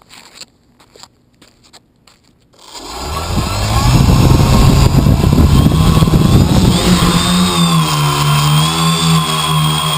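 An engine starts up about three seconds in and runs loudly, its low hum wavering slightly in pitch.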